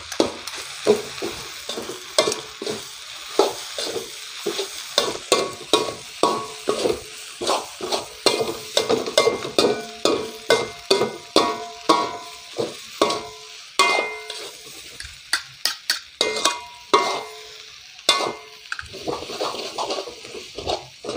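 A metal spoon and slotted spatula scrape and clank against an aluminium wok while chopped parotta with egg and chicken curry is stirred and tossed, over a steady sizzle of frying. The clanks come quickly and irregularly, a few each second, and the wok rings briefly after each.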